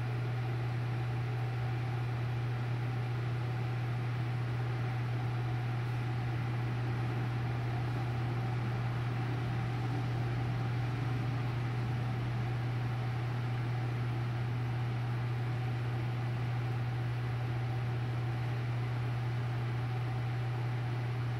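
A steady low hum over a constant hiss, with no change or separate events.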